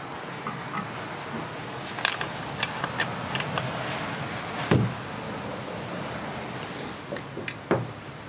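Small metal clinks and taps of a bar wrench and bar nuts on a Stihl chainsaw's clutch cover as the nuts are worked on, with two heavier knocks, one about halfway through and one near the end.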